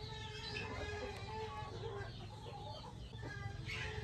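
Hens clucking faintly in the background, many short calls overlapping at different pitches.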